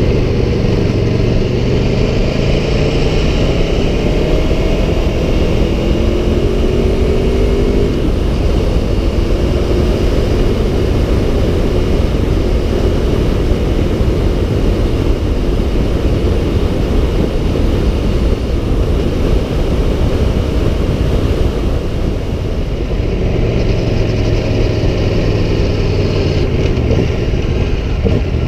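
Aprilia Tuono 1100 Factory's V4 engine running on the move, under a dense rush of wind noise; the engine note rises during the first several seconds as it accelerates, then holds steadier.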